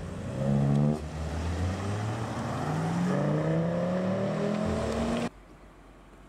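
Audi TT's engine accelerating hard away, revving up through the gears with two upshifts, about a second in and about three seconds in. It cuts off suddenly near the end, leaving a much quieter background.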